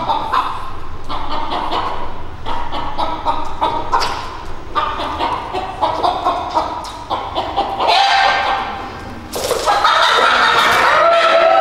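A chicken clucking and squawking in short, repeated bursts, turning louder and more continuous for the last two seconds or so.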